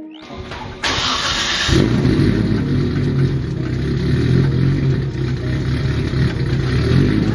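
Nissan Laurel's RB25 straight-six cranked by the starter for under a second, then catching about two seconds in and settling into a steady idle.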